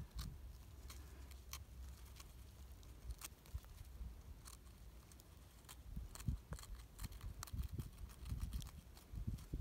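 Fine metal tweezers picking and scraping at a small lump of crumbly greensand, giving faint gritty scratches and scattered light clicks at an uneven pace, over a low rumble.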